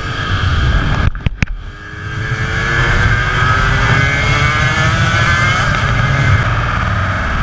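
Aprilia RS250's two-stroke V-twin engine accelerating hard, its pitch climbing steadily through a gear, over steady wind rush. About a second in, the sound briefly drops out with a couple of sharp clicks.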